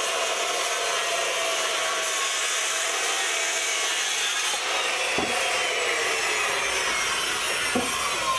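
Handheld circular saw running under load, cutting through a wooden board with a steady whine.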